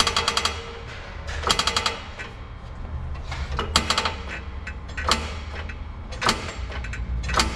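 Hydraulic floor jack being pumped to raise a vehicle: a metallic clatter with each handle stroke, about one every second and a half, the first strokes a longer rattling run of rapid clicks and the later ones shorter clacks.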